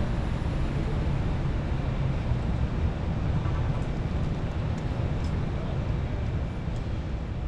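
Steady low rumble of a stationary vehicle's engine and street traffic, heard from inside the vehicle.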